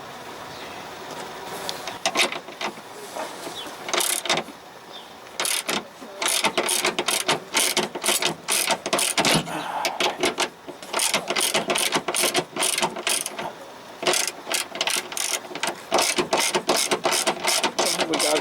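Hand ratchet wrench clicking in rapid strokes, in several runs with short pauses, after a few scattered knocks in the first seconds.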